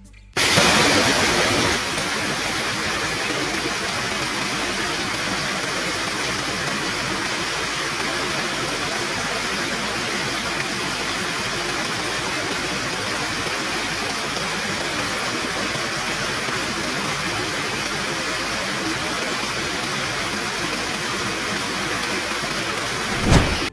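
Rushing water of a monsoon-swollen waterfall and stream, a steady, even rush a little louder in the first two seconds.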